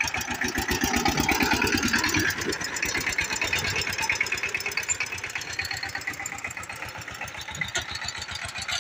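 Single-cylinder diesel engine of a two-wheel power tiller running at a steady chug under way, a little quieter in the second half.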